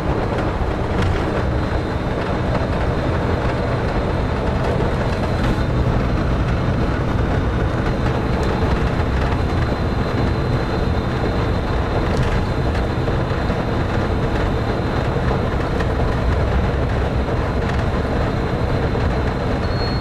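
Walt Disney World monorail train running along its concrete beam, heard from inside the front cab: a steady rumble with a faint high whine.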